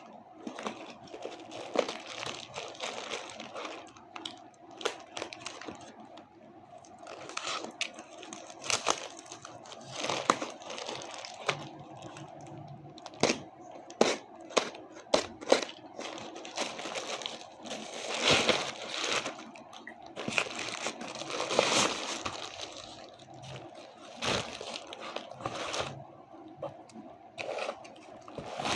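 Parcel packaging being handled, crinkled and torn open by hand, in irregular rustles with many sharp crackles and clicks.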